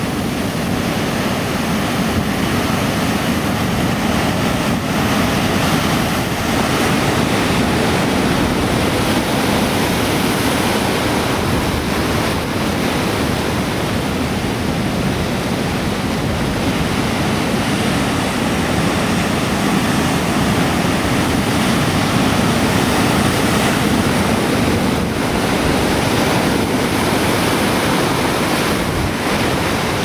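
Heavy surf breaking and washing over a rocky shore, a loud, steady rush of foaming water that swells and eases slightly.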